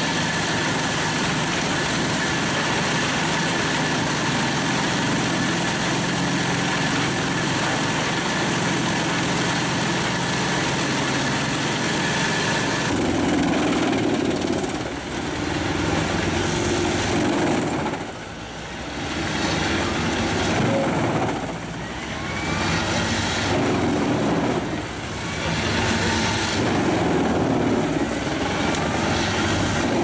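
Pezzolato PTH 1200/820 truck-mounted drum wood chipper, driven by the truck's 480 hp MAN engine, running and chipping branches and trunks fed in by the loader crane. Steady with a high whine at first; from about 13 seconds in the noise swells and dips again and again as loads go through the drum.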